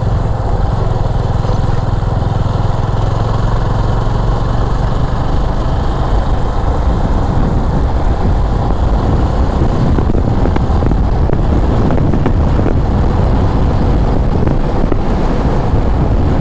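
Motorcycle riding along a road: a steady low engine hum for the first several seconds, then mostly a heavy, even rush of wind and road noise.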